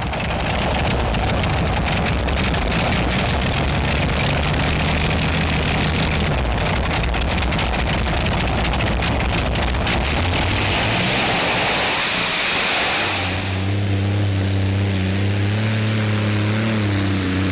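Modified pulling tractor's engine running at full power under load, with a dense crackling exhaust. About 13 seconds in the crackle dies away and it settles to a steadier, lower running note.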